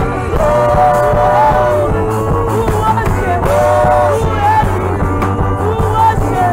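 Live gospel praise song: a woman's lead voice with backing singers holding long, wavering notes over a band with a steady beat and bass.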